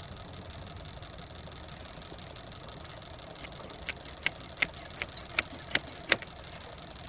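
Steady low background rumble, with a quick run of about eight sharp clicks over roughly two seconds starting a little past halfway.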